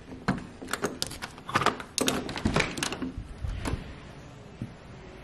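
A string of sharp clicks and knocks from a doorknob and latch being turned and a door swung open, settling into a quiet steady hiss after about three and a half seconds.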